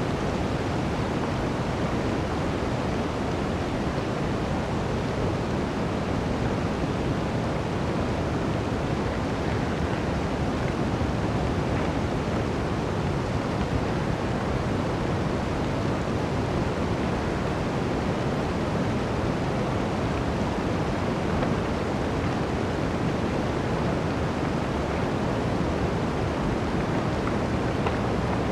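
Blizzard wind blowing steadily through a forest, a dense, even rushing noise with no gusts or breaks standing out.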